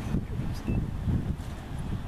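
Wind buffeting the microphone in uneven low gusts.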